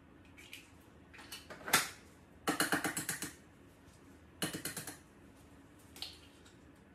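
Kitchen utensils and containers being handled at a saucepan. A short scrape ends in a sharp knock, then two rapid runs of light clicks, about ten a second, and a single click near the end.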